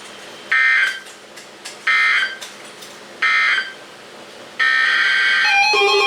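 NOAA Weather Radio SAME end-of-message data bursts: three short digital buzzes about 1.4 s apart that close the warning broadcast. Near the end a longer data burst begins, and a steady electronic alert tone with several pitches starts.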